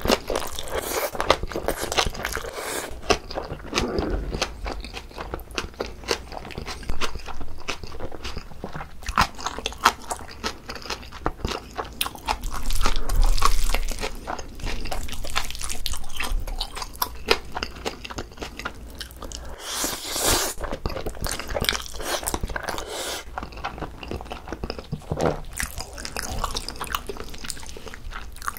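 Close-miked chewing of Chapagetti black-bean noodles and green onion kimchi: a steady run of wet mouth clicks and crunching bites, with two longer, louder stretches, about halfway through and a few seconds later, that fit slurps of noodles.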